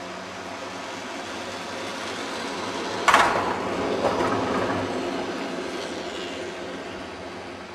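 Chairlift grip passing over a support tower's sheave train (roller assembly) on a Von Roll VR 101 chairlift: a rumble that swells as the tower nears, a sharp clack about three seconds in as the grip meets the rollers, a smaller knock a second later, then a rattling rumble that fades as the chair moves on.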